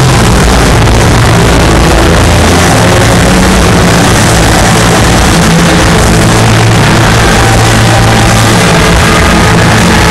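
Live rock music played through a stadium sound system, recorded so loud that the microphone overloads: a continuous distorted wash with a steady low bass line.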